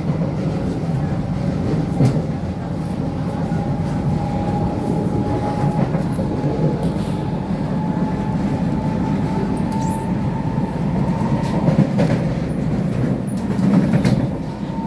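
SMRT C151C metro train heard from inside the carriage while running: a steady rumble of wheels and running gear, with a thin whine that slowly rises in pitch and a few short knocks from the track.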